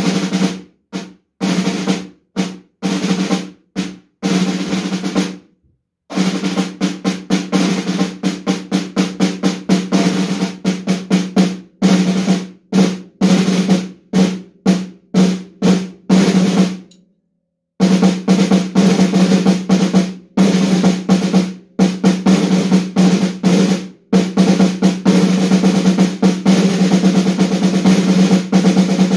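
Snare drum played solo with sticks in a study piece: fast rolls and runs of accented strokes, the drum head ringing with each stroke. The playing stops for about a second twice, about five seconds in and just past halfway.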